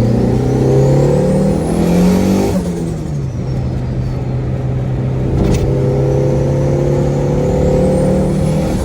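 Turbocharged Chevrolet Corsa engine heard from inside the car, pulling hard with a high turbo whistle rising in pitch. About two and a half seconds in, the revs drop suddenly at a gear change, and the whistle falls away. The car then runs at steady revs, and the whistle rises again near the end.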